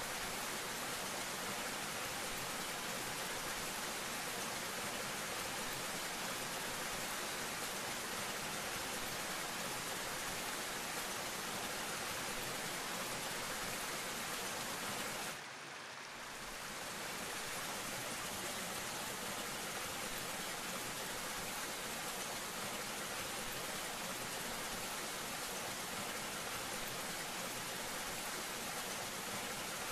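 Small waterfall pouring into a shallow rock pool: a steady rush of falling and splashing water. It drops away briefly about halfway through and then comes back.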